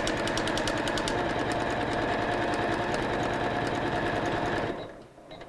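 Embroidery machine stitching out an appliqué placement outline, its needle striking in a rapid, even rhythm over a steady motor hum. It stops suddenly near the end as the placement stitch is finished.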